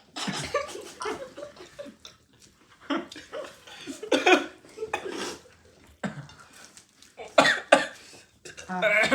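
People coughing and laughing in a string of short bursts, about seven over several seconds.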